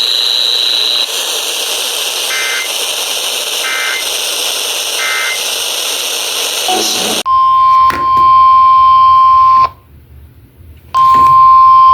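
Weather radio static carrying three short data bursts of an EAS header about a second and a half apart. Then the loud, steady 1050 Hz NOAA Weather Radio warning alarm tone cuts in, breaks off for about a second, and resumes.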